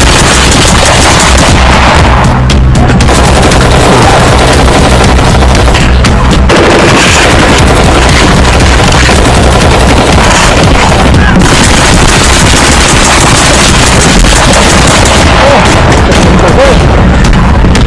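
Loud, heavily compressed soundtrack music, mixed with rapid gunfire-like shots and booms.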